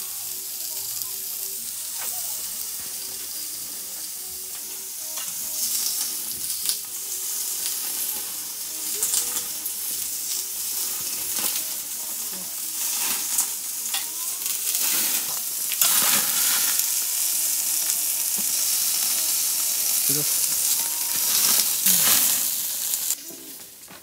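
Raw pork belly slices sizzling on a Weber portable gas grill, with occasional clicks of metal tongs on the grate. The sizzle grows louder as more slices go on, then drops off sharply about a second before the end.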